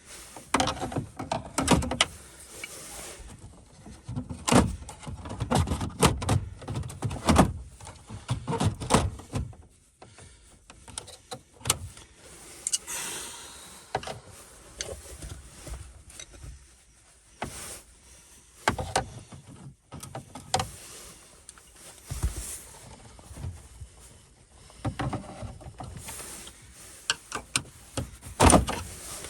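Irregular clicks, knocks and rattles from hands and tools working in a car's dashboard during a radio install, with stretches of rustling and handling noise between them.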